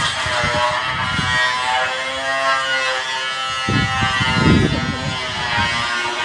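People's raised voices in long, drawn-out calls, with low rumbling bursts on the microphone from about three and a half seconds in.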